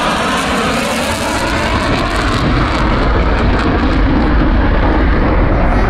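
Eurofighter Typhoon's twin EJ200 turbofan jet engines, a loud rushing jet noise as the fighter passes and climbs away. The high hiss fades after about two and a half seconds, leaving a deep bass rumble.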